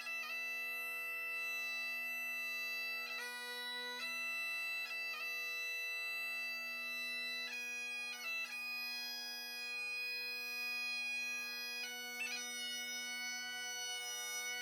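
Bagpipes playing a slow tune: long held melody notes over a steady drone, with quick grace-note flourishes at each change of note.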